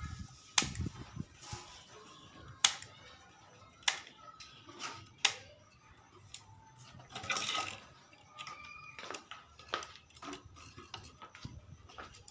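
Sharp clicks and snips as thin black cage bars are cut and worked into a wooden bird-cage frame with hand cutters: single strokes about a second apart, with a longer scraping rattle a little past halfway.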